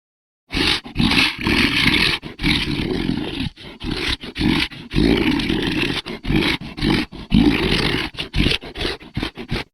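Monster roar sound effect: a long, rough roar that starts about half a second in, is broken by many brief cut-outs, and stops abruptly just before the end.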